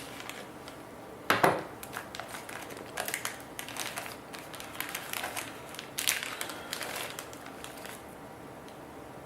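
Propane fuel lock-off filter housing being opened and handled by hand: a sharp knock about a second and a half in, then scattered clicks and light scraping of parts, dying away near the end.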